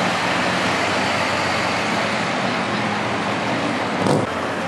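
A lifted diesel dually pickup running steadily as it drives away down a street, with a low engine drone over the noise of passing traffic. A brief thump comes about four seconds in.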